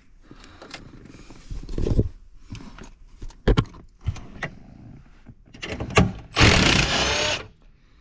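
Work noises under a car's dashboard: scattered clicks and knocks, then a loud scraping rustle lasting about a second near the end.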